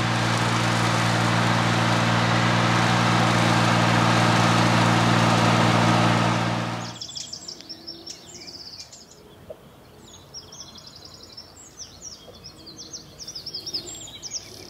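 A small ride-on tractor mowing long grass, its engine running steadily, stops abruptly about seven seconds in. After that, birds chirp and sing, with several short calls repeating.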